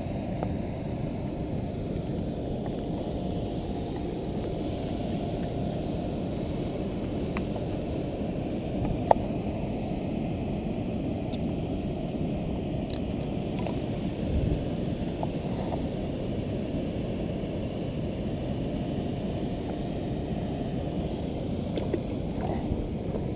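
Steady, muffled low rushing of the river's water, with a few small metallic clicks from the lip-grip and pliers as the fish is unhooked; the sharpest click is about nine seconds in.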